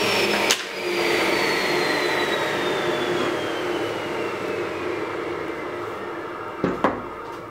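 Table saw finishing a cut through a thick softwood board, then switched off about half a second in. Its blade spins down with a whine that falls slowly in pitch as the noise fades, and there are two knocks near the end.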